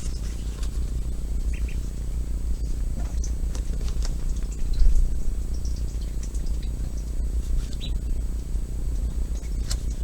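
Steady low electrical hum, with a few faint scattered ticks and taps over it.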